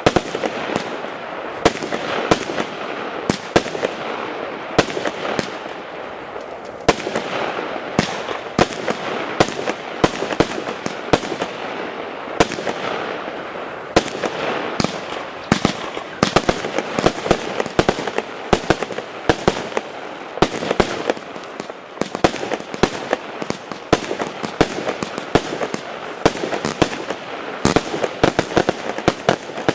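Hallmark Fireworks "Darkside" multi-shot firework firing continuously: many sharp bangs of bursting shots, irregularly spaced, over a steady hiss and crackle of launching tails and glittering bursts.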